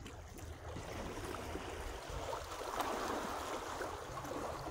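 Small waves lapping and trickling among shoreline rocks: a steady, crackly wash of water with a low rumble underneath.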